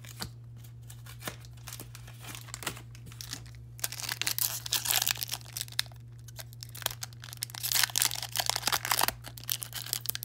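Foil Pokémon booster pack wrapper crinkling and being torn open by hand, a few light crackles at first, then dense, loud crackling from about four seconds in.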